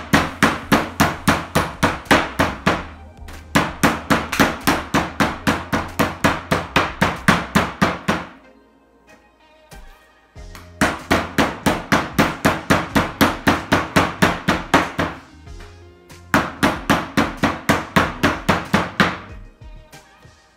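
Meat mallet pounding chicken breast flat on a board for schnitzel, in rapid runs of blows at about three a second with short pauses between. Background music plays underneath.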